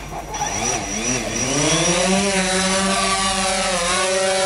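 DJI Phantom 4 quadcopter's motors and propellers spinning up for takeoff: the whine rises in pitch over about two seconds, then holds steady as the drone lifts off and hovers.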